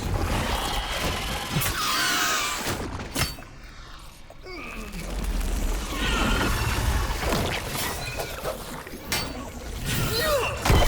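Action-film sound effects of crashing and shattering impacts layered over dramatic score music, with a quieter dip about four seconds in.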